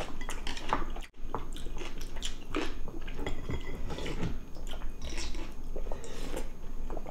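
Two people eating at a table: close-up chewing and mouth sounds, a bowl being drunk from, and the light clicks of spoons and chopsticks against ceramic bowls, coming irregularly. The sound drops out for a moment about a second in.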